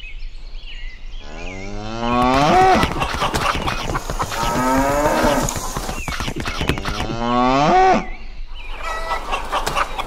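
Cattle mooing: a series of long calls, several rising in pitch, with rapid clicking between them.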